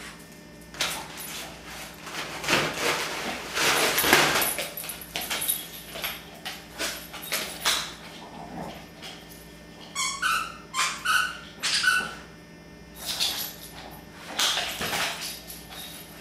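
Boston Terrier tearing into a wrapped present, the wrapping paper rustling and crinkling in long spells. A few short, high-pitched dog whines come about two thirds of the way in.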